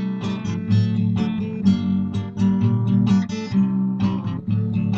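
Acoustic guitar strummed, an instrumental passage with a steady bass line between sung verses.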